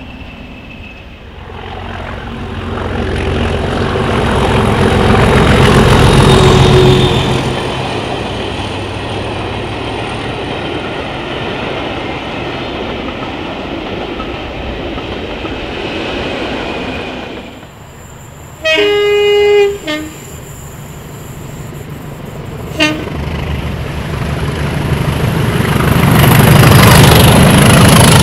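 Diesel locomotive-hauled trains passing, each swelling to a loud engine and wheel noise and then fading. A horn sounds once for about a second and a half, with a brief second toot a few seconds later.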